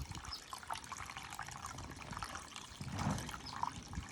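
Pond water trickling and gurgling as a pump on the bottom drain draws the surface into a floating pond surface skimmer, with a brief low rumble about three seconds in.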